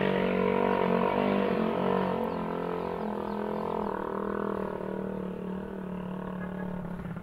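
A motor running steadily: an even, low hum with overtones that gets a little quieter after about two seconds.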